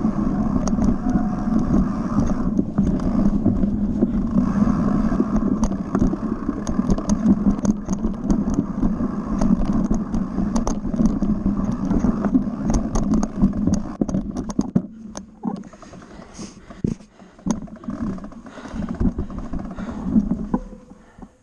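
Mountain bike riding fast down a forest dirt trail, heard through a camera mounted on the handlebars: a steady rumble of tyres and wind, with the bike rattling and knocking over the rough ground. Past the middle it gets quieter and patchier, leaving scattered knocks and clicks.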